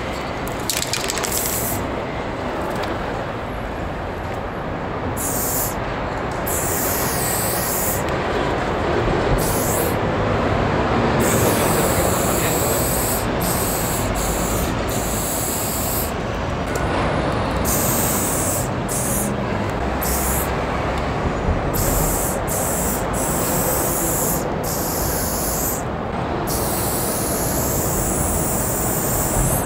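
Aerosol spray-paint can spraying in repeated hissing bursts of about half a second to two seconds each, over a steady background rumble.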